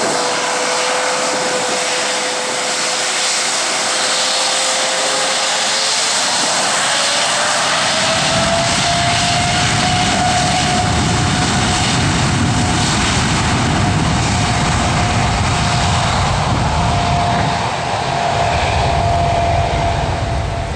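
Boeing 787's Rolls-Royce Trent 1000 turbofan engines spooling up for takeoff: a steady whine rises in pitch about six seconds in, and a deep rumble joins from about eight seconds as takeoff thrust builds.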